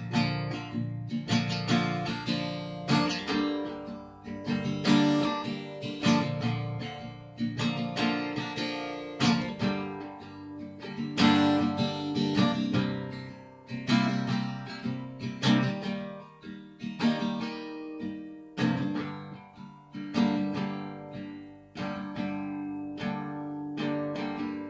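Cutaway acoustic guitar played solo, chords strummed in a steady rhythm with the notes ringing on between strokes.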